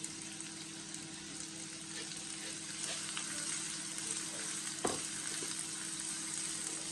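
Freshly added chopped onion sizzling in hot oil with garlic in a nonstick wok, stirred with a silicone spatula: a steady frying hiss with small scraping ticks. About five seconds in there is a single sharper knock.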